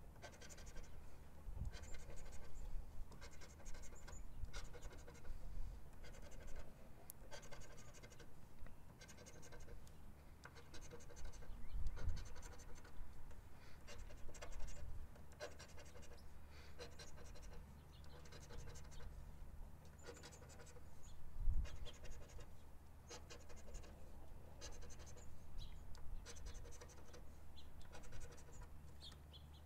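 A scratch-off lottery ticket being scratched: quick, irregular scraping strokes with short pauses between them, and a few soft knocks.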